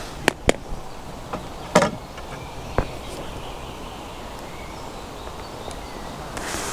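A few sharp clicks and knocks with a brief rustle from handling fishing tackle, the loudest a little under two seconds in, over a steady outdoor background hiss.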